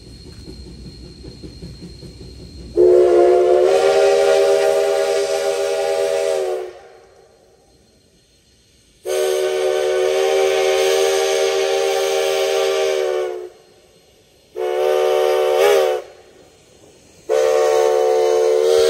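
Steam locomotive No. 152's whistle blowing two long blasts, a short one and another long one, the grade-crossing signal. For the first few seconds before the whistle there is only the low rumble of the approaching train.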